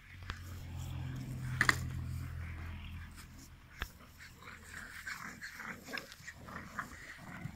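Dogs growling during rough play, an American Staffordshire terrier and a puppy tugging at a toy: a low steady growl for about the first three seconds, with a short sharp sound about a second and a half in, then scattered scuffling noises.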